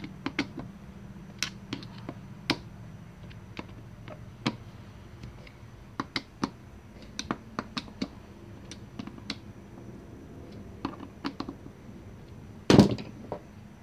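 Screwdriver driving the float-bowl screws on a Yamaha V-Star 650's twin carburetors: irregular small metal clicks and taps as the tip seats and turns in the screw heads. A louder clatter comes near the end.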